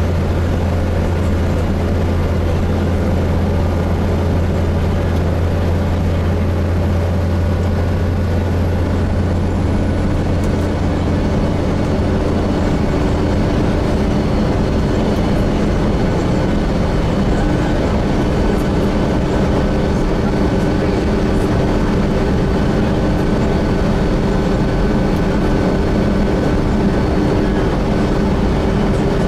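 Inside a Gillig Phantom diesel transit bus with a Voith transmission running at freeway speed: a steady engine drone and road noise. About twelve seconds in, the deep hum fades and higher steady tones take over.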